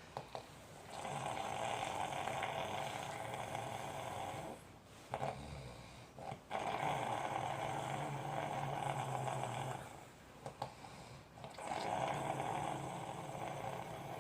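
Snoring in slow, long drawn breaths: three snores of about three and a half seconds each, with short pauses between them in which small clicks are heard.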